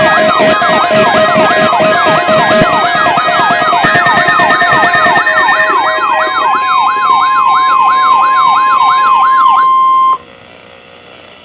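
Weather radio receivers sounding their alert alarms together for a required weekly test: siren-like warbling sweeps about four a second, mixed with beeping tones and, in the second half, a steady high tone. All of it cuts off suddenly near the end.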